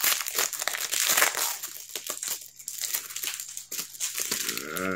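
Plastic trading-card pack wrappers being torn open and crinkled by hand, an irregular run of crackling rustles. A short hum of a voice near the end.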